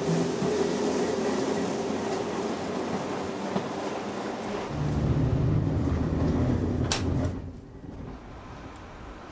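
Old Berlin S-Bahn electric trains rolling slowly through the depot tracks: a steady motor hum with wheel-on-rail rumble that grows heavier about five seconds in. A sharp click comes about seven seconds in, and then the sound drops to a much quieter background.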